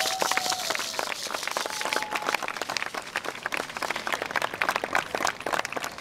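Crowd applauding: many hands clapping densely and irregularly, with a few brief calls in the first two seconds.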